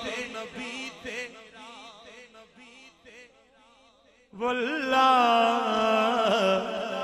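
A man singing a Punjabi naat, with ornamented, wavering notes that trail away to near quiet about three seconds in. Just past four seconds a loud, long held note with a vibrato comes in on the word 'walla'.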